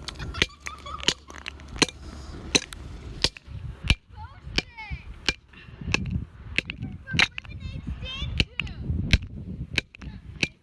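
Hammer blows on a hard road-light housing: sharp, evenly paced strikes about once every three-quarters of a second.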